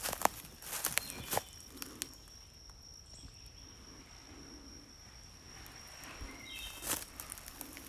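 Footsteps crunching through dry leaf litter on the forest floor, a few steps in the first second and a half and another about seven seconds in. A steady high-pitched insect drone runs underneath, with a couple of short bird chirps.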